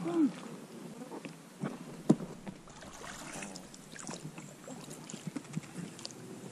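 Knocks and light clatter of oars and gear in an inflatable PVC boat on the water, with one sharp knock about two seconds in and scattered small clicks after it.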